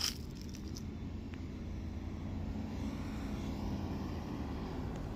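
A vehicle's engine running as it drives slowly past, its hum swelling a little through the middle.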